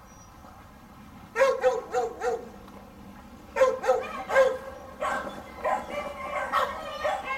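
Beagles barking and yipping in short, sharp calls. A few single barks start about a second in, then the barking grows more frequent and overlapping in the second half.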